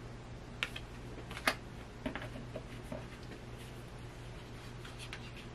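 A few light clicks and taps of tarot cards being handled and moved to the next card, over a steady low hum.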